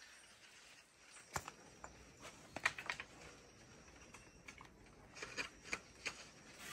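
Quiet, scattered clicks and small crackles of twigs and leaves as someone shifts among the branches of a marang tree. There is one click early, a cluster in the middle and several more near the end.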